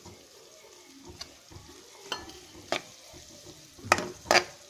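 Chopped vegetables frying in a metal kadai while a steel spoon stirs them, with a faint sizzle. The spoon knocks against the pan five times, the last two, near the end, the loudest.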